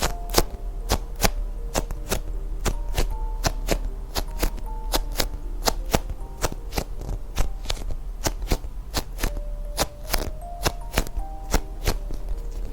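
Background music with a light melody of held notes, over an irregular run of sharp taps or clicks, several a second.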